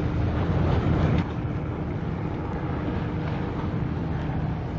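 Steady low engine rumble with a faint held hum, a little louder in the first second, with wind noise on the microphone.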